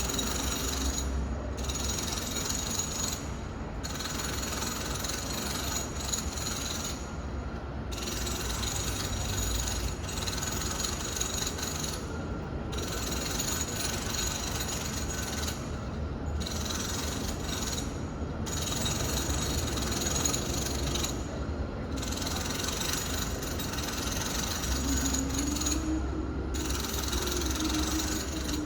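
Home renovation noise heard through walls from another room: continuous mechanical grinding and rattling work with a low rumble, breaking off briefly every few seconds.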